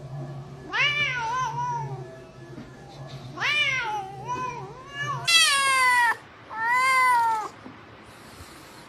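Domestic cat meowing about five times, each meow rising then falling in pitch. The last two are the loudest and longest. A low steady hum underneath stops about five seconds in.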